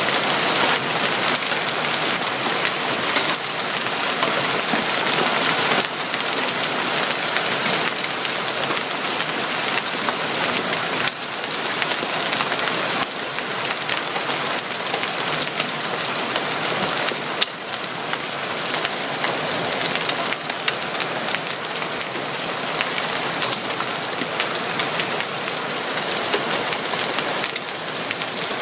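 Large hailstones and rain pelting down in a dense, steady hail of impacts, with many individual sharp hits standing out of the constant patter.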